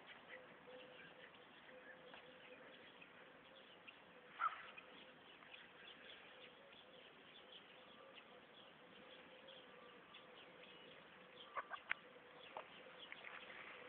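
Near silence with a faint steady hiss, broken by one short animal call about four and a half seconds in and a few faint clicks near the end.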